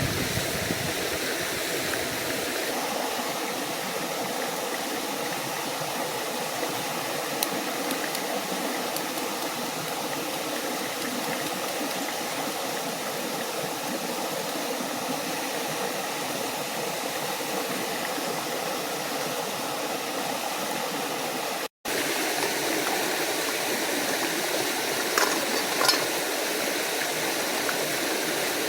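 A forest stream and small waterfall rushing steadily, an even wash of running water, broken by a brief gap about three quarters of the way through and a few light clicks near the end.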